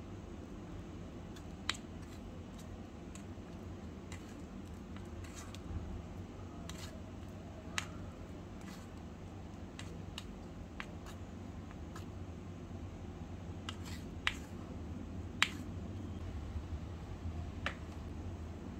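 Small plastic spatula tapping and scraping against a miniature aluminium bowl while mixing dough, giving scattered sharp clicks, about half a dozen of them louder than the rest. A steady low hum runs underneath.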